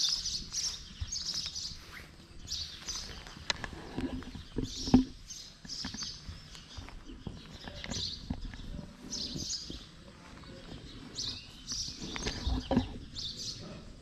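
Small birds chirping in short, high bursts that recur irregularly, with a couple of low thumps, the loudest about five seconds in and another near the end.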